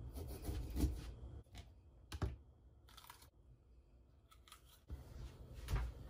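Kitchen knife cutting a red bell pepper on a plastic cutting mat: crisp crunching cuts through the pepper and a sharp knock of the blade or pepper on the board about two seconds in, with more cutting near the end.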